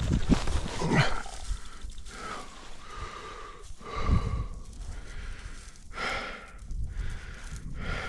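A person breathing hard in a run of noisy breaths, one every second or two, with rustling steps through snow-covered grass.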